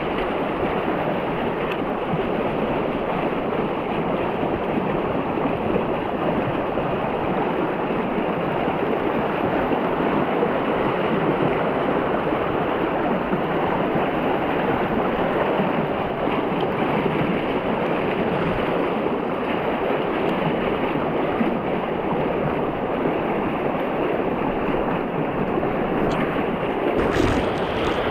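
Steady rush of fast-flowing river water over shallow rapids. A few light clicks come near the end.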